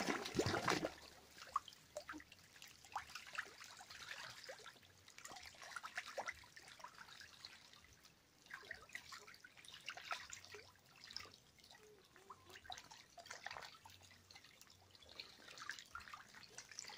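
Young ducks bathing in a shallow concrete pool: a burst of splashing in the first second, then lighter splashes and dripping water on and off as they dip and paddle.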